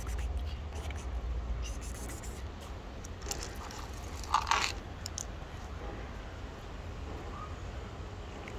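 Dry cat kibble poured from a plastic cup, rattling and scattering onto a stone ledge in a short loud burst about four seconds in. Before it come small crunching clicks of cats eating the kibble, over a steady low rumble.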